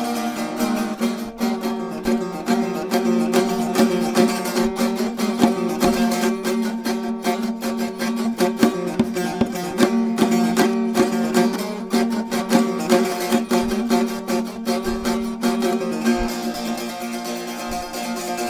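Polusaz, a six-string Bosnian long-necked lute, played solo: fast, even strumming of a folk tune over ringing drone strings.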